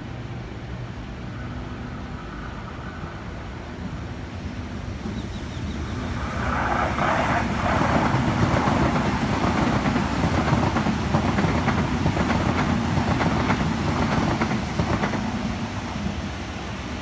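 Sydney Trains Waratah electric passenger train passing close at speed. The rumble builds over a few seconds, stays loud for about eight seconds with rapid wheel clicks over the rail joints, then fades near the end.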